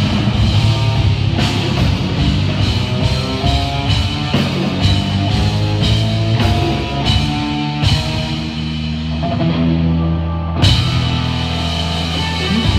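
Loud rock music with a drum kit. The high end falls away from about eight seconds in, over a held low note, and the full sound crashes back in abruptly about ten and a half seconds in.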